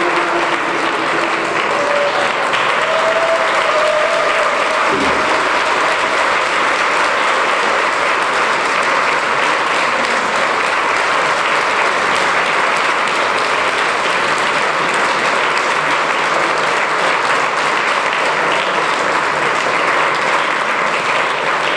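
Audience applauding steadily, a dense, even clapping that holds at one level throughout.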